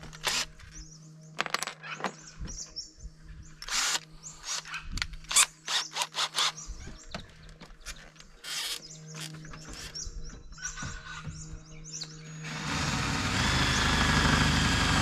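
Scattered clicks and knocks of tool handling, then about twelve seconds in a power drill starts and runs steadily, drilling an 8 mm hole after the pilot hole.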